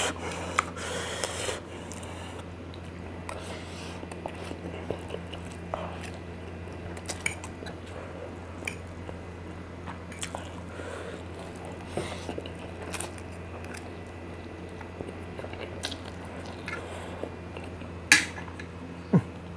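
A person chewing a mouthful of spicy instant noodles close to the microphone, with light clicks of a fork and spoon against the plate and a sharper click near the end, over a steady low hum.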